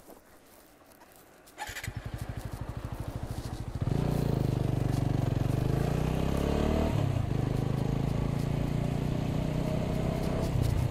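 TVS Apache 200 single-cylinder motorcycle engine starting about two seconds in and idling briefly, then pulling away and accelerating with rising pitch, a gear change around seven seconds, and climbing again.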